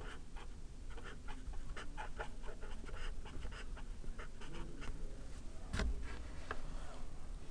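Felt-tip marker writing on a paper pad in quick short strokes, then a single thump about six seconds in and a small click shortly after.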